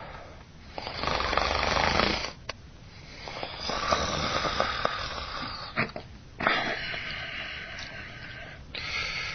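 A baby snoring: about three long snoring breaths, each lasting around two seconds, with short quiet gaps between them and another starting near the end.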